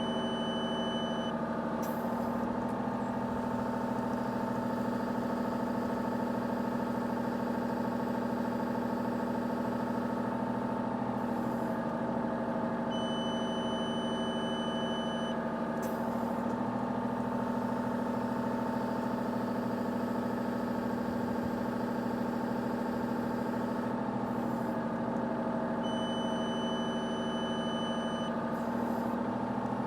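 Excavator diesel engine running steadily at about 1600 rpm while the boom is worked through a calibration lift. The scale's beeper sounds three times, a steady high beep of about two seconds each, near the start, about halfway and near the end; the beeping marks the readings being taken while the boom is held back.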